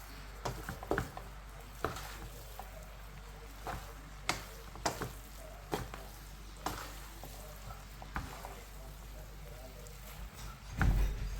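Kitchen utensil clicking and knocking against a pan at irregular intervals, about once a second, as the noodles are stirred and tossed, over a faint steady hiss. There is a heavier thump near the end.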